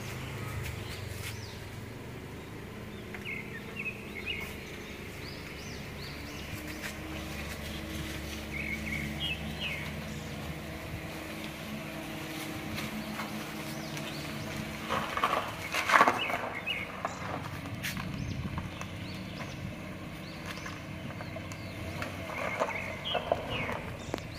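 Mazda 2 hatchback's engine running low and steady as the car creeps forward at walking pace, with birds chirping now and then. About fifteen seconds in comes a short clatter of sharp knocks, the loudest sound here.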